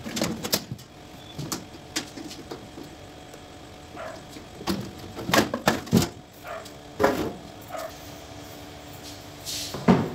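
The sheet-metal top cover of a stainless steel autoclave being lifted off by hand: a run of metal clanks, knocks and scrapes, loudest about halfway through and again near the end.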